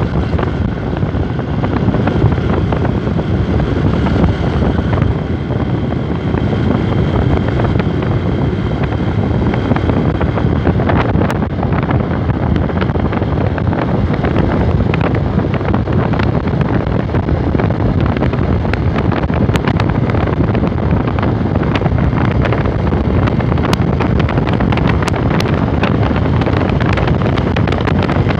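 Steady wind rush buffeting the microphone of a motorcycle riding at road speed, with the Honda NXR 150's single-cylinder engine running underneath, and a few short clicks near the end.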